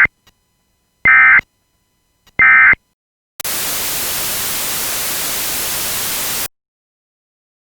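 Emergency Alert System SAME end-of-message data bursts: three short, shrill digital bursts about 1.3 seconds apart, the first already under way at the start, marking the end of the alert. They are followed by about three seconds of loud radio static, which cuts off abruptly into silence.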